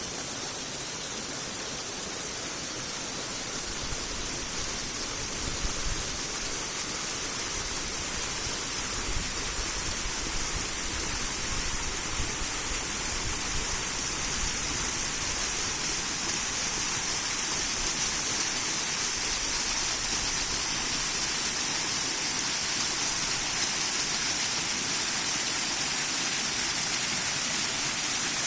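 Water pouring over a small dam on a river pond: a steady rushing splash, a little louder after the first few seconds.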